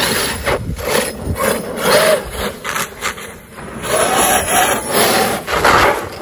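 An 8S electric RC rally car being driven hard on street tyres over a rough road: its motor whines up and down in repeated short throttle bursts over a steady rough scrub of tyres on the chip-seal.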